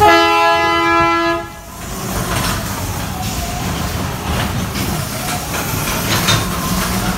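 A horn sound effect blasts a loud held chord for about a second and a half, then cuts off. After it comes the steady low rumble and clatter of the ride car running along its track.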